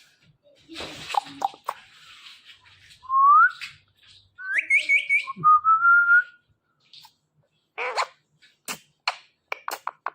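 Ringneck parrot whistling: one rising whistle, then a quick run of short high notes and a longer, slightly rising whistle, followed by a few short harsh clicks near the end.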